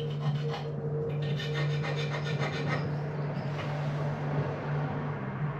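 Rubbing and scraping against a hard surface, strongest from about a second to three seconds in, over a steady low hum.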